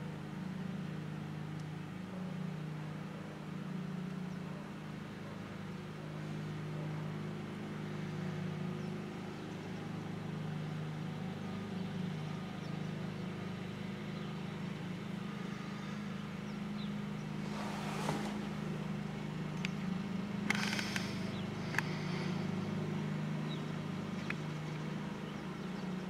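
Vehicle engine idling with a steady low hum, heard from inside the car, with a few light clicks in the last third.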